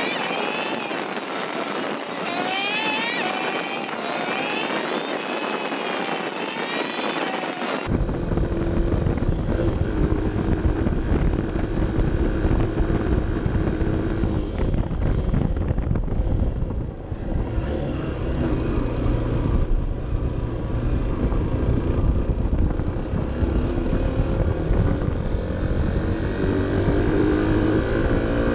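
Honda CB 125 F's single-cylinder engine running under load on a climbing ride, with wind and road noise beneath it and the engine note rising near the end. For the first eight seconds or so the sound is a sped-up, warbling time-lapse version of the ride, which cuts abruptly to real-time engine sound.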